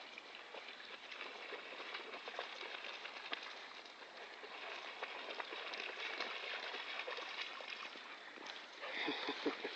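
English springer spaniels running and splashing through shallow floodwater, a continuous watery hiss broken by many small irregular splashes. A short, louder burst about nine seconds in.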